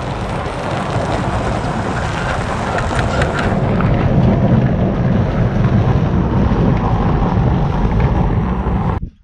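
Wind buffeting the microphone over a red Ford Super Duty pickup towing a loaded flatbed trailer away across packed snow. The sound cuts off suddenly near the end.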